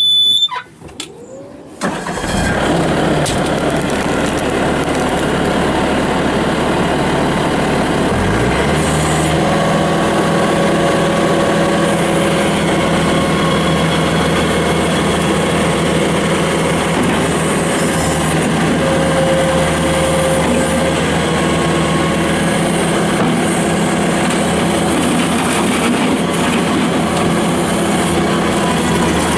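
2007 Bobcat T300's Kubota four-cylinder turbo diesel starting about two seconds in after a short high beep, then running steadily; around eight seconds in its pitch rises as the engine speeds up, then holds at the higher speed.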